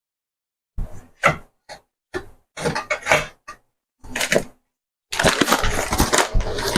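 Kitchen containers and jars being knocked together and shuffled while rummaging through a cupboard: a string of separate clacks and knocks, then, about five seconds in, a denser run of continuous clattering and rustling.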